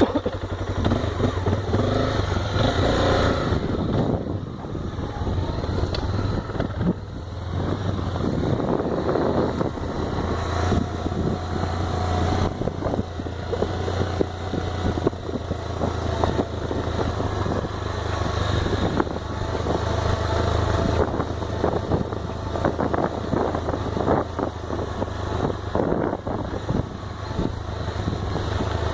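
Honda XRE single-cylinder motorcycle engine running at a steady pitch while riding, with frequent rattles and knocks over it.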